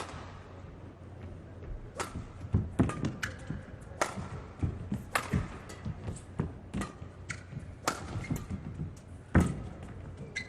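Badminton court sounds: sharp knocks and thuds at uneven intervals, about one every half-second to second, from racket strikes and footfalls on the court floor, with a few brief shoe squeaks.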